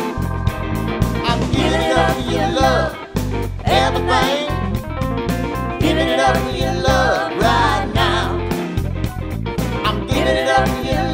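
Live band playing an upbeat song: a singer over electric guitar, bass and a steady drum beat.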